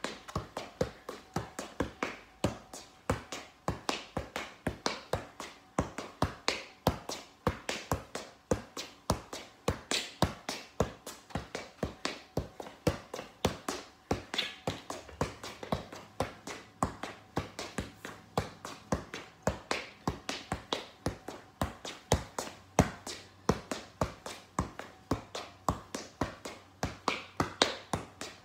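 Soccer ball being juggled off the feet and thighs: a quick, even run of dull taps, one for each touch of the ball.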